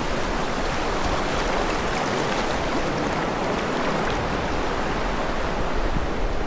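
River water rushing in a steady, even rush.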